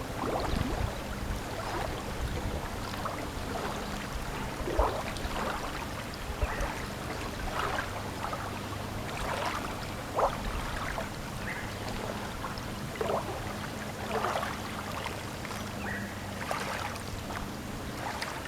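Riverbank ambience: a steady low hum and the wash of water, with scattered short, high sounds every second or two.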